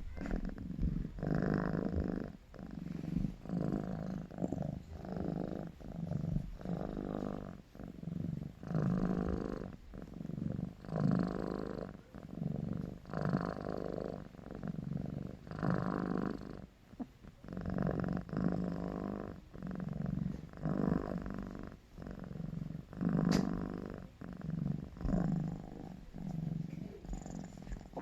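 Orange Korean shorthair cat purring, a low rumble that swells and fades in even pulses a little faster than once a second with each breath.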